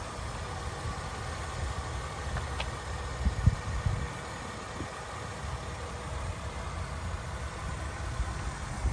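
Mercedes-Benz ML350's 3.7-litre V6 idling steadily, with wind buffeting the microphone, strongest about three and a half seconds in.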